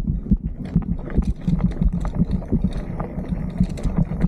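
Beach cruiser bicycle jolting over rough, grassy ground, its frame rattling with frequent irregular knocks over a constant low rumble of wind on the microphone.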